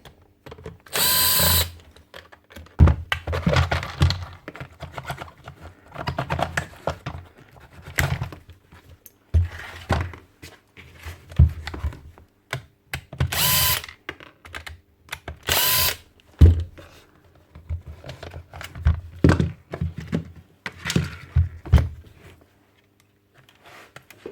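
A power tool motor running in several short bursts of about half a second each, with knocks and clatter of tool parts being handled between them.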